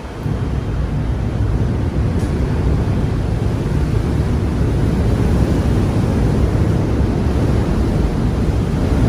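Strong wind buffeting the microphone over a rough sea: a steady, loud rushing noise, heaviest in the low end.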